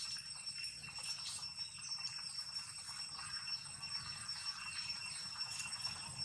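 Outdoor ambience of a steady, high-pitched insect drone, with faint scattered rustles and ticks.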